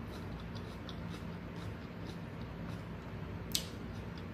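Faint mouth sounds of someone eating pasta: small wet clicks, with one sharper click about three and a half seconds in, over a low steady hum.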